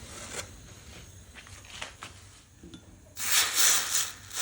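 Hot fire-roasted ginger root put into cold water, hissing loudly for about a second near the end as the hot surface is quenched. A few light clicks come before it.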